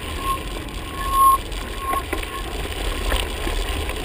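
Mountain bike riding over a rough, rocky dirt trail: wind rumbling on the camera's microphone, the bike rattling and knocking over stones, and short high squeals that come and go, loudest just after a second in.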